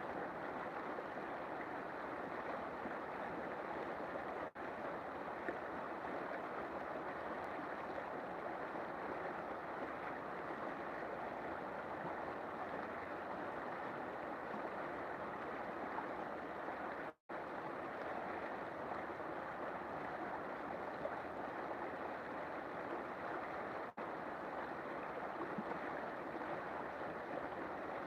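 River water flowing steadily, an even unbroken wash of water noise, cut by three very brief dropouts.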